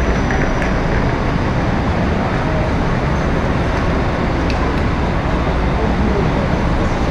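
Steady rumble of coach engines idling and moving in an enclosed underground bus station, heard as a dense, echoing din.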